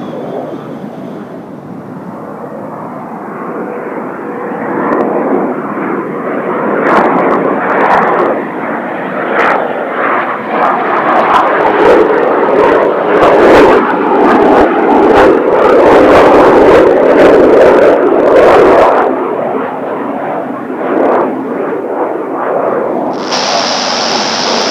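Kawasaki T-4 jet trainers flying over in formation: a jet rush that builds, is loudest about two-thirds of the way through with sharp crackling, then eases off. A burst of radio hiss comes in near the end.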